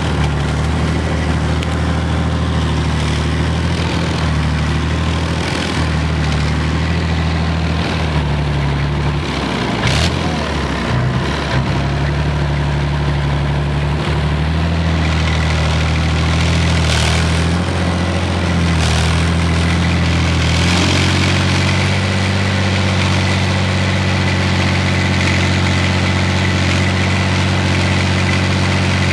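BVP-1 infantry fighting vehicle's UTD-20 V6 diesel engine running steadily, heard from on top of the hull, with a few knocks and clatters around the middle. The engine note shifts about two-thirds of the way through.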